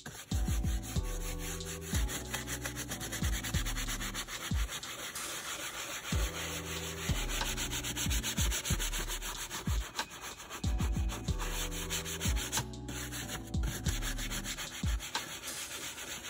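Stiff hand brush scrubbing a lathered plastic door sill plate with rapid back-and-forth strokes, over background music with a steady bass line.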